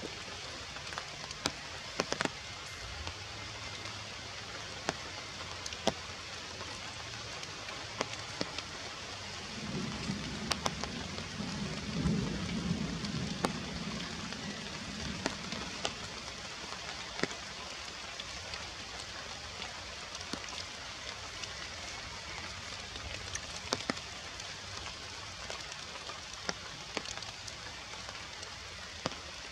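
Steady rain falling on forest foliage: an even hiss with scattered sharp drips close by. A low rumble rises about ten seconds in and fades over some six seconds.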